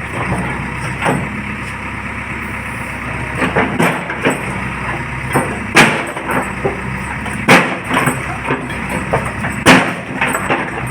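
JCB backhoe loader's diesel engine running steadily, with repeated sharp knocks and clanks as the bucket strikes and breaks the concrete pillar. The loudest knocks come about six, seven and a half and nearly ten seconds in.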